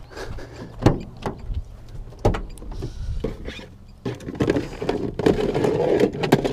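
A car door is opened with a few sharp clicks and knocks, then gear is rummaged through and clattered about inside the car.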